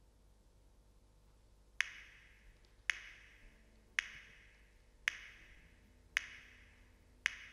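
Six sharp percussive clicks, evenly spaced about a second apart and starting about two seconds in, each ringing briefly and fading.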